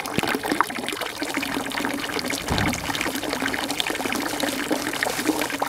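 Steady trickling and splashing of running water.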